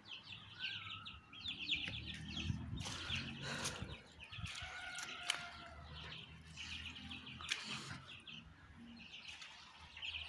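Small birds chirping in rapid, repeated high trills, with a few short clicks among them.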